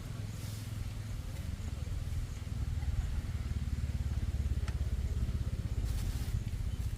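Wind buffeting the microphone: a steady, gusting low rumble that grows somewhat stronger after about two and a half seconds, with one faint click near the end.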